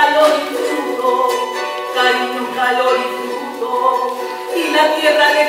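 Music: a song with a singing voice holding and moving between sustained notes over instrumental accompaniment.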